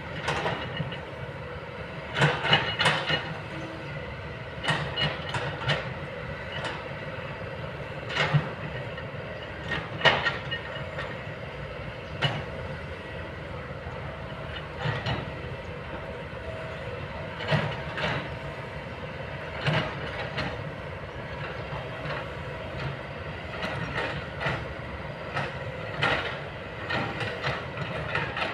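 Kobelco long-boom excavator's diesel engine running steadily, with irregular metallic clanks and knocks from the machine working, a few seconds apart.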